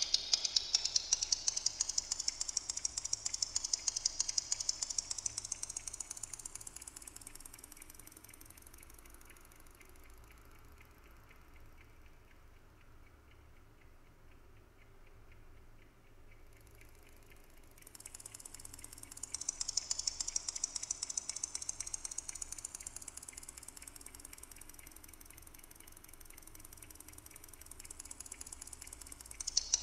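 Amplified ticking of a Westclox Silver Bell Monogram clock, multiplied into a dense clatter of overlapping delayed copies by a digital delay whose time is steered by a galvanic skin response sensor, so that time seems to stretch and shrink. The pitch of the ticks wavers up and down as the delay shifts. It fades low about a third of the way in, jumps back up a little past halfway, fades again and swells near the end.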